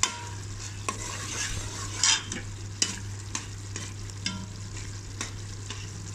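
Metal ladle stirring thick chana daal and bottle gourd curry in an aluminium pot. It clinks and scrapes against the pot about once a second, loudest about two seconds in, over a steady sizzle of the curry cooking down.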